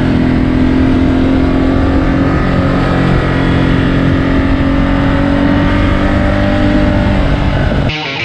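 Ducati Multistrada 1260 S V-twin engine running steadily under load while riding, its pitch rising slowly over several seconds and then easing. It cuts off sharply near the end.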